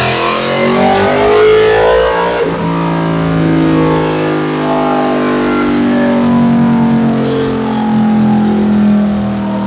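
A 2023 Yamaha R1's crossplane inline-four with a full Austin Racing exhaust running on a dyno. It is loud and hard-revving for about the first two seconds, then drops off to a lower, steadier note whose pitch slowly falls.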